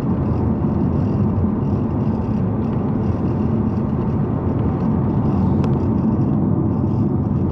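Car driving on the road: steady engine and tyre noise that does not change over these seconds.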